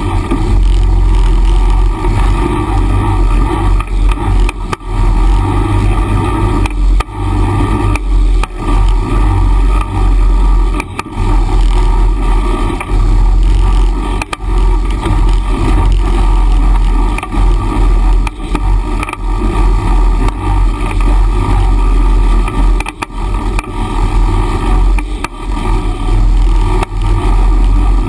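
Off-road utility vehicle engines running as a Honda Pioneer 500 side-by-side and a Honda Foreman 500 ATV crawl over a rocky creek-bed trail. A heavy low rumble dominates, broken by frequent knocks and jolts from the rough ground.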